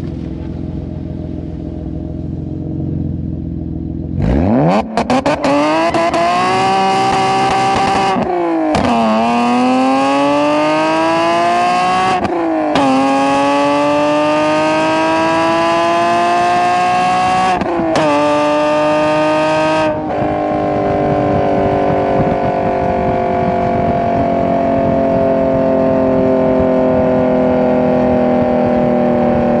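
Nissan 370Z's 3.7-litre V6 breathing through PPE headers: running low at first, then accelerating hard about four seconds in, the pitch climbing through three upshifts. About two-thirds of the way through the throttle lifts, and the engine note falls slowly as the car slows in gear.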